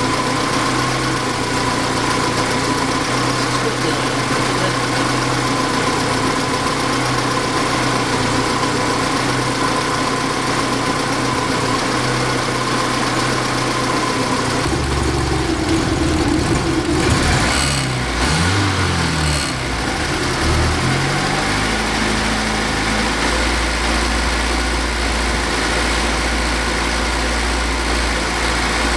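Saab 90's engine, fed by a reworked Stromberg carburettor, idling on choke while warming up; the mixture is now lean enough that it relies on the choke to keep running. About halfway through the engine note shifts and wavers for a few seconds, with a few clicks, then settles to a lower, steady hum.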